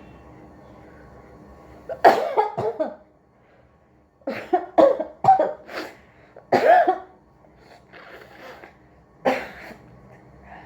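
A person sneezing and coughing in short, sharp bursts: one about two seconds in, a quick run of four near the middle, then two more spread apart. The fits are set off by tickling the inside of the nose with a matchstick.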